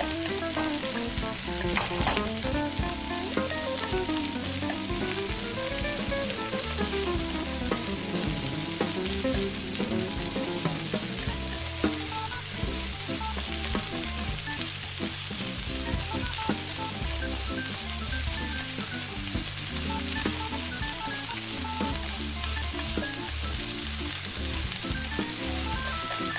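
Chopped vegetables sizzling as they fry in oil in a miniature saucepan, with a steady hiss and the scrape of a tiny spoon stirring them. A gentle melody plays faintly underneath.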